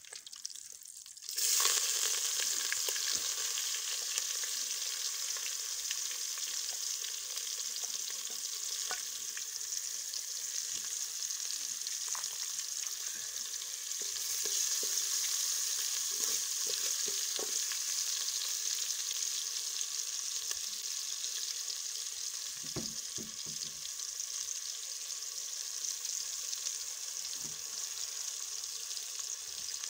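Onions going into a hot pan and frying: a sudden sizzle starts about a second and a half in and carries on steadily, with a few knocks from stirring.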